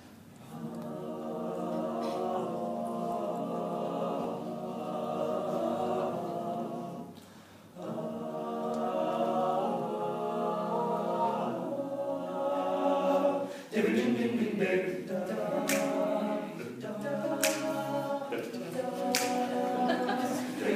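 All-male a cappella group singing in close harmony, opening with held chords that break off briefly about seven seconds in. From about fourteen seconds the singing turns more rhythmic, with a few sharp clicks.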